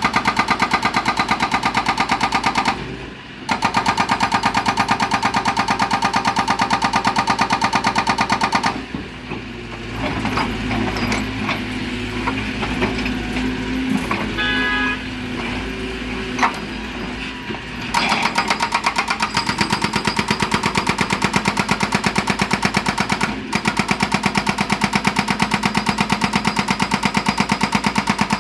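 Excavator-mounted hydraulic breaker hammer pounding stone in a rapid, even rhythm, with a brief stop about three seconds in. From about nine seconds the hammering stops and the excavator's engine and hydraulics run with shifting tones. The hammering resumes at about eighteen seconds.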